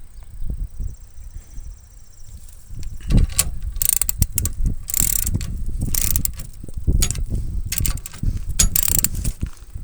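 Ratcheting torque wrench, set to 50 foot-pounds, clicking through repeated back-and-forth strokes as it tightens the barrel vise nuts. The strokes start about three seconds in.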